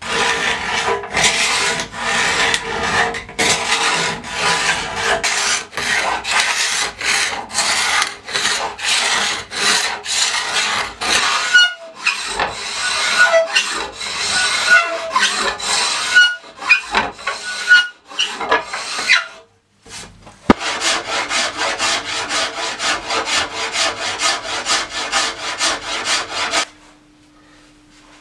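Hand rasp or file strokes working Osage orange bow wood, a rough scraping stroke about twice a second. After a brief pause and a single sharp click, faster, shorter strokes follow and then stop.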